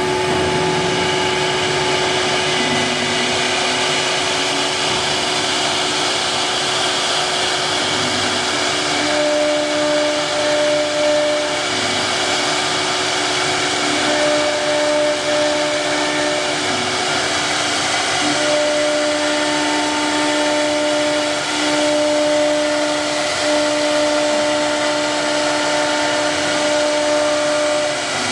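A 4.5 kW CNC wood router running, with a steady whine over a loud, even hiss. From about nine seconds in, a pair of further tones keeps switching on and off in stretches of one to three seconds.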